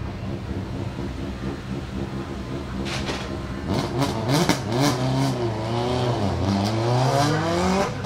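Rally car engines idling. From about three seconds in, a Subaru Impreza S7 WRC's turbocharged flat-four gives sharp pops and revs rising and falling as it launches, then pulls away with the engine pitch climbing steadily. The sound cuts off suddenly at the end.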